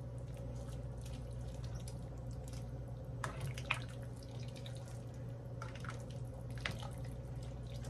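A cooking spoon stirring thick chicken and vegetable soup in a large pot: wet sloshing with scattered light splashes and spoon knocks, a few sharper ones around the middle and near the end, over a steady low hum.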